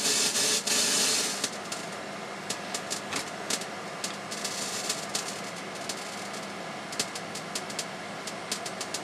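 Proportional counter tube's pulses played through an audio amplifier: a dense, fast crackle of X-ray counts that merges into a hiss, then drops suddenly about a second and a half in to scattered single clicks of background counts.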